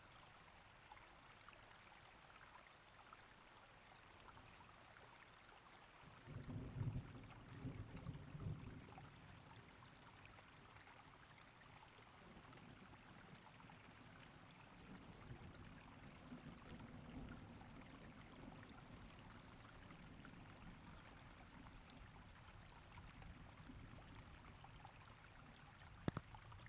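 Near silence: faint room tone, with a few soft low bumps about six to nine seconds in and a short click near the end.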